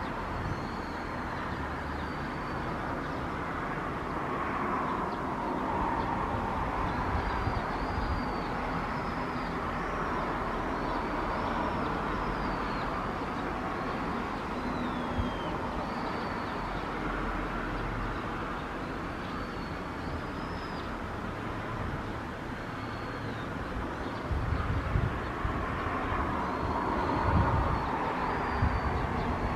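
Steady distant rumble of outdoor city ambience, swelling and fading slowly, with short high chirps throughout and louder low thumps near the end.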